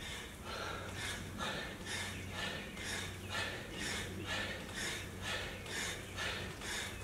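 A man breathing hard and fast, about two loud breaths a second, winded from the exertion of a high-intensity workout of barbell thrusters and pull-ups. A low steady hum runs underneath.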